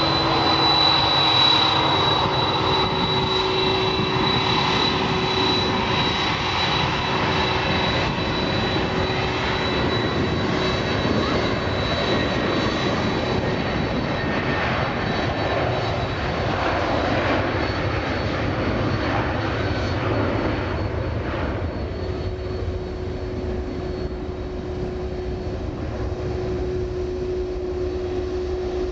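Engines of a Boeing 757-200 jet airliner running during its take-off run and climb-out: a steady rushing noise with a thin high whine held throughout.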